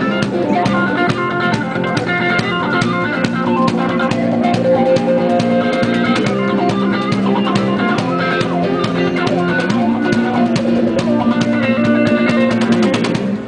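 A small acoustic band playing an instrumental solo break: guitars hold changing notes over a hand drum keeping a steady beat.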